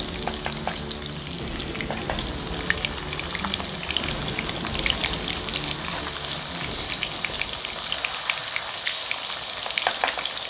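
Masala-coated fish frying in hot oil in a kadhai: a steady sizzle with dense crackling and popping.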